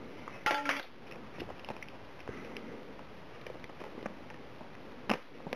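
Hands handling a new iPod touch and its packaging: faint rustling and small clicks, with a short pitched sound about half a second in and a single sharp click near the end.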